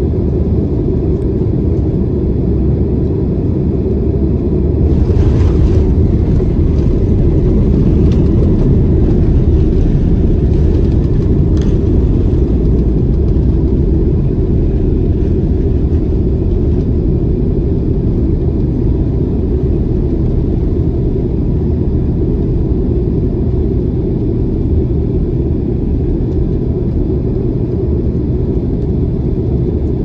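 Cabin noise of a Boeing 767-300 landing: a steady low rumble that grows louder and rougher about five seconds in as the airliner touches down and its spoilers come up, with a few rattles, then rolls on along the runway and slowly eases as the plane slows.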